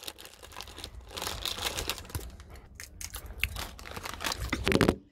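Crinkling and crunching of crisps being handled and eaten close to the microphone, irregular crackles throughout. A brief low vocal sound near the end.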